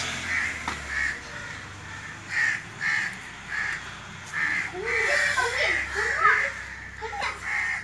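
Crows cawing repeatedly, short harsh calls following one another throughout, thickest toward the middle.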